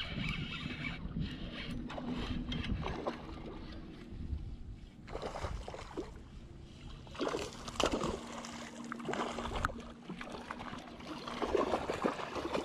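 A spinning reel is cranked while a hooked bass is played in from shore, with irregular clicks from the reel and bursts of splashing water about halfway through and near the end. A low rumble of wind on the microphone runs through the first few seconds.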